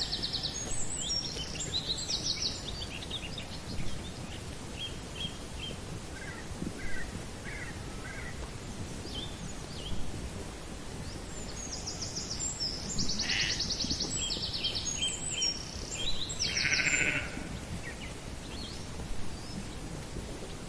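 Sheep bleating in short, high, thin calls, a cluster near the start and another in the second half, over steady outdoor background noise.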